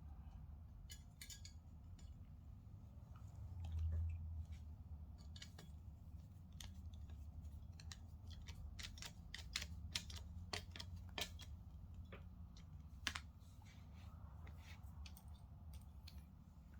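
Faint, scattered small clicks and taps of monitor stand parts and screws being handled and fitted, coming thickest in the middle stretch, over a low steady hum. A soft low bump about four seconds in.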